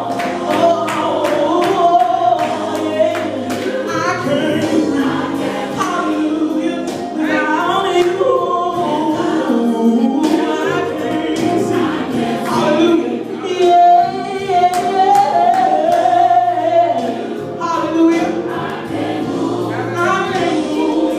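A woman singing a gospel song through a microphone with a choir behind her and a steady beat, her voice holding long wavering notes.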